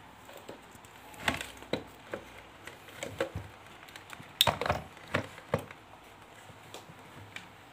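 Hard-plastic clicks and knocks as a cordless-tool battery pack is handled and set onto a Panasonic Li-ion charger, a scatter of about nine short knocks with the loudest about four and a half seconds in.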